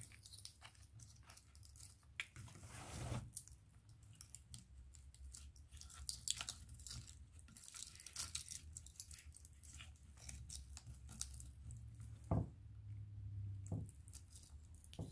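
Light crackling and rustling of dry bark and pine pieces being handled and set in place on a wooden base, with two soft knocks near the end, over a faint low hum.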